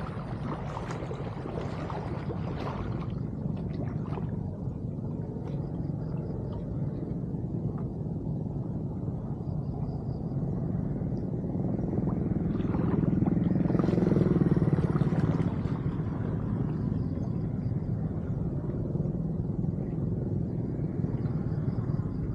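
Canal water flowing into a freshly cleared culvert, a steady low rumble, with splashing from wading in the first few seconds. Just past the middle a louder rumble swells up and fades again.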